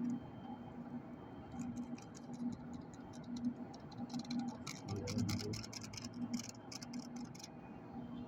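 Steady electrical hum with a regular pulse, and a run of quick clicks and crinkles through the middle.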